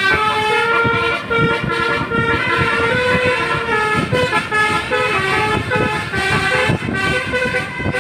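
Basuri telolet horn on a coach bus playing a melody: several horn tones sound together and step from note to note without a break.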